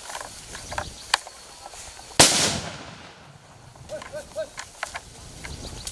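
A single loud explosive bang about two seconds in, dying away over about a second: a blast set off to drive wild elephants away. Smaller clicks and rustles around it.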